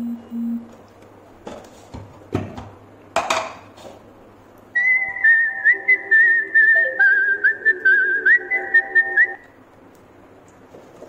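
A whistled tune with a wavering, warbling high note that glides and steps in pitch, starting about halfway through and lasting about four and a half seconds, over lower notes. A few sharp clicks come before it.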